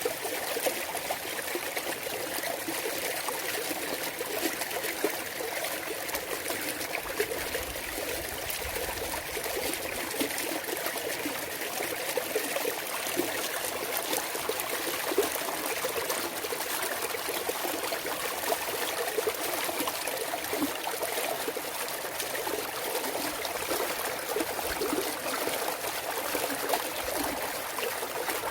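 Clear mountain stream trickling and babbling steadily over rocks, with small splashes and gurgles.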